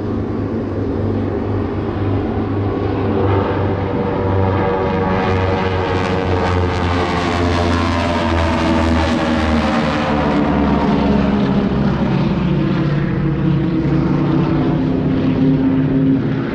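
Formation of North American T-6 Texan aerobatic planes, their radial engines and propellers droning as they pass. The sound swells about halfway through, then the engine pitch slowly falls as the planes move away.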